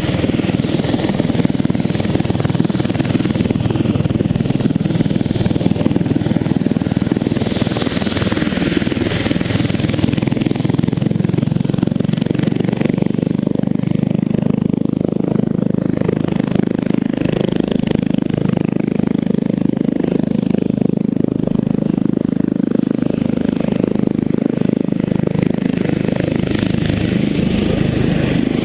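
Airbus H145 twin-engine helicopter running on the ground, its turbines and rotor going steadily and loudly.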